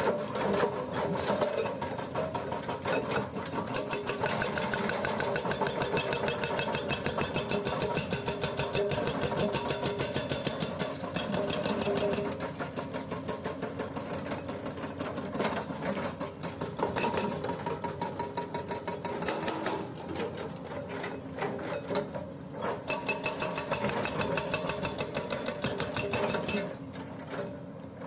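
Hydraulic breaker hammer on a Hyundai R210LC-7H excavator firing rapid repeated blows over the excavator's running engine. The hammering eases briefly a few times and drops away near the end.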